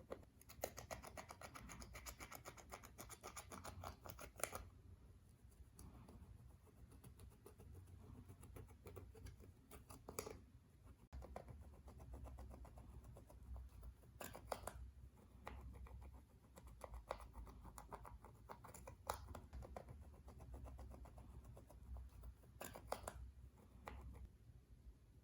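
Slime being worked by hand, giving soft runs of quick clicks and squishes: a dense stretch in the first few seconds, then shorter bursts every few seconds.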